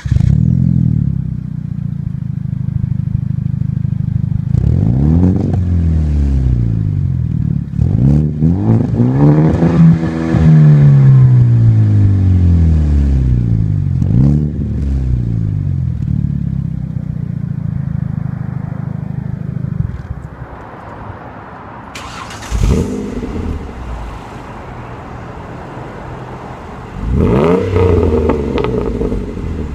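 Hyundai Genesis Coupe 2.0T's turbocharged four-cylinder idling through its exhaust and revved several times, each rev rising and falling in pitch, the biggest about ten seconds in. In the last several seconds a Ford Mondeo ST220's V6 with a JP exhaust is revved in sharp blips.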